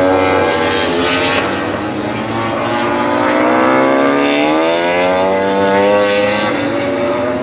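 Engines of several MotoGP race bikes running on the circuit, overlapping tones rising and falling in pitch as they accelerate and shift through the gears. One climbs steadily in pitch through the middle.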